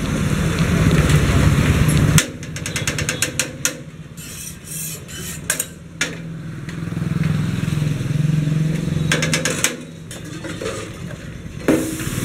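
Steel ladles and spoons clinking and tapping against steel containers and a steel plate as chutney and sambar are served, in quick runs of clinks about two seconds in and again around nine seconds in. A low engine hum runs underneath for the first two seconds and again through the middle.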